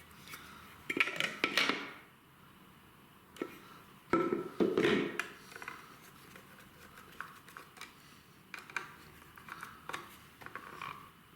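Metal clinks and rattles from a brass socket faceplate and its screws being handled and fitted to the back box, with a busy cluster about a second in, another about four seconds in, and lighter ticks after.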